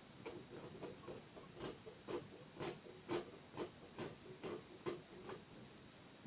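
A saw being drawn back and forth in short rasping strokes, about two a second, as it cuts at a tail.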